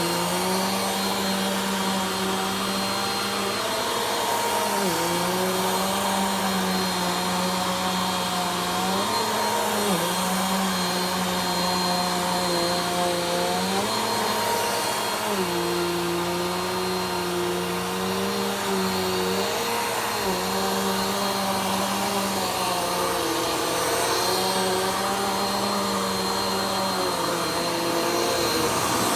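Upright vacuum cleaner running continuously during slow vacuuming, its motor pitch shifting slightly every few seconds.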